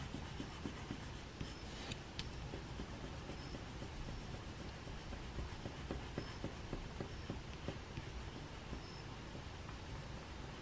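Graphite pencil rubbing on paper in quick, short back-and-forth shading strokes.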